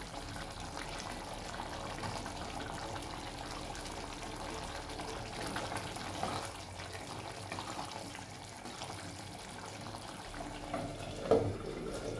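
Metal ladle stirring through thick, simmering beef stew in a stainless steel pot, a soft liquid sloshing. About a second before the end comes a short knock as the glass lid is set on the pot.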